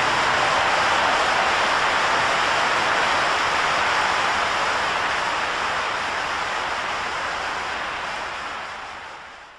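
A huge stadium audience applauding, a dense even roar of clapping that fades away over the last few seconds.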